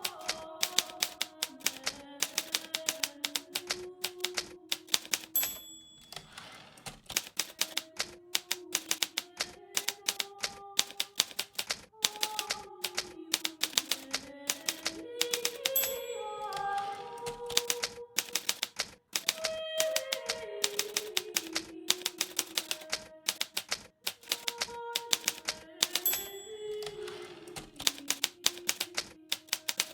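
Hermes Baby portable typewriter typing steadily, a rapid run of sharp keystrokes, over soft background music with a slow stepping melody.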